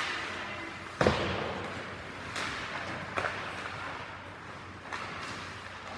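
Ice hockey play in an echoing rink: sharp knocks of sticks and puck, with one loud hit about a second in and a few lighter knocks after it.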